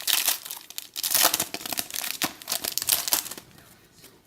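Wrapper of a trading-card pack being torn open and crinkled in the hands: a dense run of crackling that stops about three and a half seconds in.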